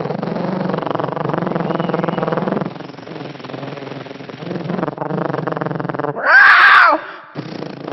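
King Kong roar sound effects done with the voice: a long, low, pitched growling roar, then quieter growls, and a loud high shriek that rises and falls about six seconds in.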